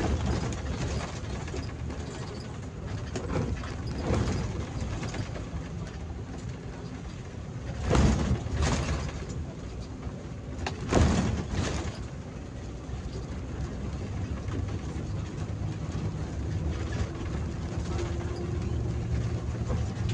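Bus engine and road noise heard from the driver's cab while driving, a steady low drone. Louder whooshes about eight and eleven seconds in as oncoming vehicles pass.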